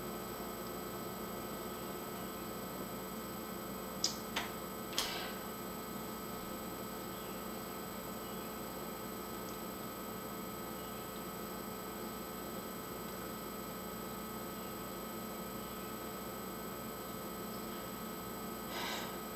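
Room tone: a steady electrical hum and hiss, with a few sharp clicks about four and five seconds in and a brief soft rustle near the end.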